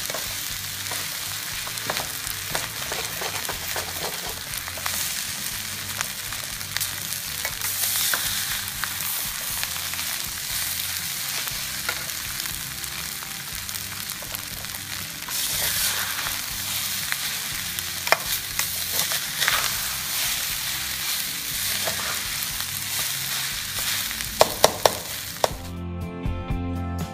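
Fried rice sizzling in a stainless steel wok while a metal spatula stirs and scrapes through it, with sharp clinks of the spatula against the pan. Near the end the sizzling stops and music takes over.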